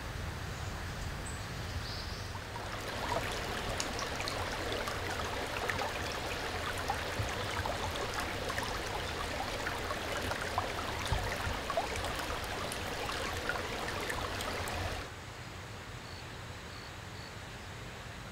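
Shallow rocky stream babbling over stones. It comes in about three seconds in and cuts off abruptly near the end, leaving a fainter outdoor background.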